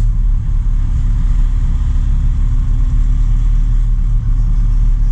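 Truck engine running steadily under way, with a heavy low rumble of engine and road.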